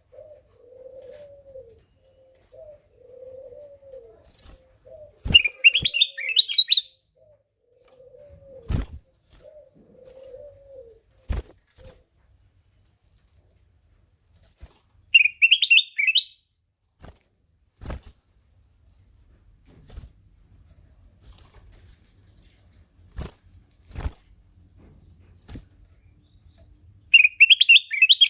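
A kutilang emas songbird sings three short, rapid phrases of high warbling notes, spaced about ten seconds apart. A low cooing call repeats through the first half, with a steady high-pitched tone behind it and scattered sharp clicks.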